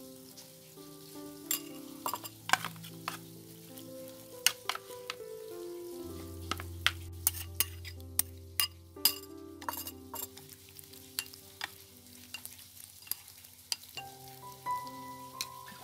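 Wooden chopsticks clicking and scraping against a ceramic bowl as sliced raw meat is tossed in a wet marinade, in sharp, irregular taps. Soft instrumental music plays underneath.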